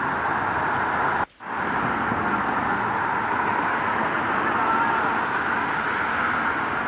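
Steady rain mixed with the rush of street traffic, a continuous even hiss. About a second in, the sound cuts out abruptly for a split second and then resumes.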